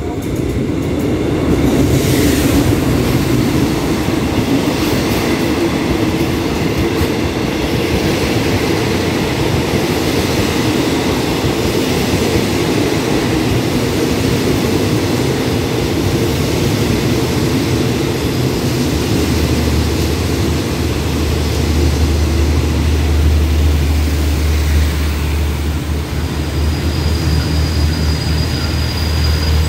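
A diesel-hauled express passenger train rolling into the station and passing close by, with a steady heavy rumble of wheels on rail as the carriages go past. About two-thirds through a deep steady hum joins in, and near the end a thin high squeal begins as the train slows to stop.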